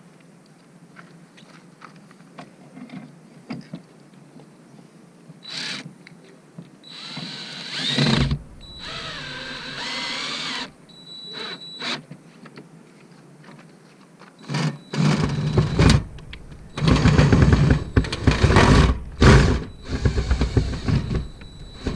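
Cordless 20V drill/driver driving screws to fasten an RV refrigerator into its frame. It runs in several separate bursts, the motor speeding up and slowing, with a cluster of louder runs in the last third.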